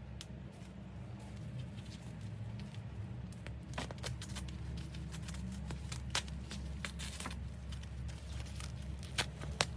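Handbag and packaging being handled: scattered sharp clicks, taps and rustles, the loudest clicks near the end, over a steady low hum.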